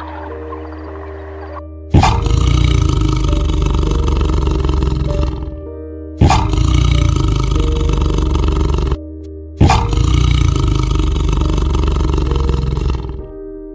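Tiger roaring three times, each roar starting suddenly and lasting three to four seconds, over soft background music.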